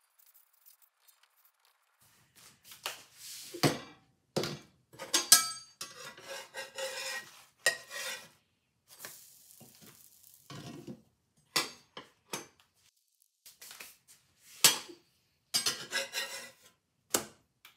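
Glass lid and metal spatula clanking and scraping against a cast-iron skillet as a pita is lifted and turned over. There is a brief hiss about halfway through.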